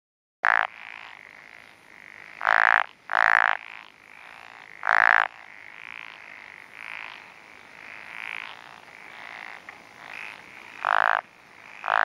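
Wrinkled frog (Glandirana rugosa) croaking: about half a dozen loud calls of roughly half a second each, at irregular intervals, over fainter calling in the background.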